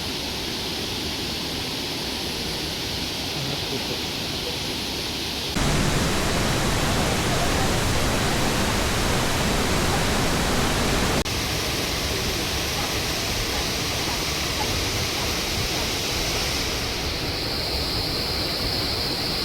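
Rushing water of a rainforest stream, a steady even rush heard in three cut-together takes, the middle one louder. A steady high-pitched buzz comes in over the last couple of seconds.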